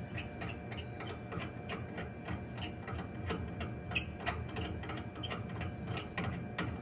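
Light, irregular clicking and ticking, several clicks a second, as the metal nozzle cone is turned by hand onto the threads of a CO2 laser head, over a steady low hum.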